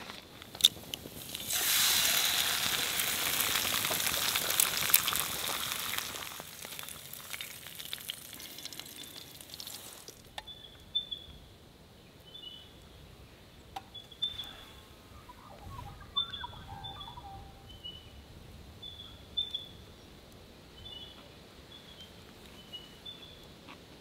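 An egg frying in a pan over a campfire. It starts sizzling loudly about a second and a half in, then fades away after a few seconds. After that, birds give short high chirps every second or so.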